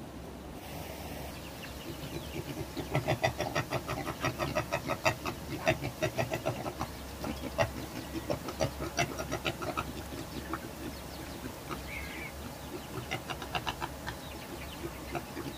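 Piglets smacking and chewing at wet ground-corn mash in a plastic feed tray: a quick, irregular run of short smacks, several a second, that thins out after about ten seconds. A short high call comes about twelve seconds in.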